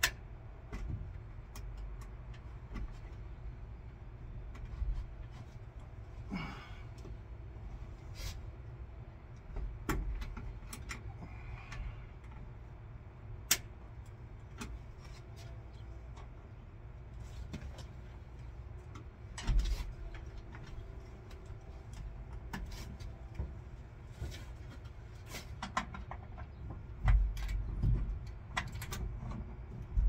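Scattered knocks, clicks and light rattles of hands working on parts and wiring overhead, a few sharper knocks standing out, over a steady low rumble.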